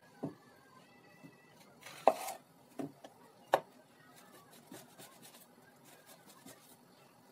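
Red onions knocking on a wooden cutting board as they are cut with a kitchen knife: a few sharp knocks in the first four seconds, the loudest about two seconds in, then quieter slicing.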